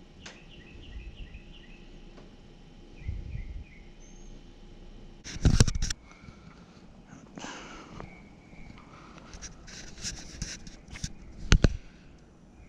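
Short repeated chirps, a few to the second, in the first second and again about three seconds in, then scattered clicks and rustling with two loud thumps, about five and a half and eleven and a half seconds in.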